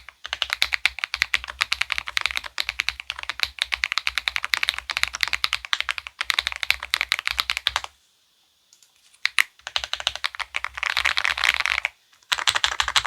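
Rapid typing on an Akko 5075B Plus mechanical keyboard with Akko CS Lavender Purple tactile switches and stabilizers lubed with Krytox 205g0 and a three-layer tape mod on the PCB, giving a thocky keystroke sound. A dense run of keystrokes lasts about eight seconds, then comes a short pause with a few single presses, then more bursts of fast typing.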